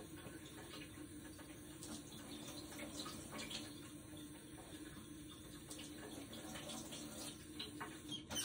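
Kitchen faucet running water over peeled hard-boiled eggs in the sink, rinsing off the last bits of shell: a steady, fairly quiet splashing with a few light clicks.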